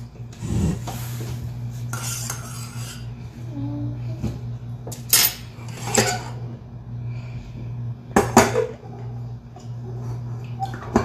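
A spoon stirs and scrapes in a stainless steel saucepan of just-boiled milk. A few sharp metal knocks and clinks follow about five, six and eight seconds in as the pan is lifted off the gas stove's burner grate. A steady low hum runs underneath.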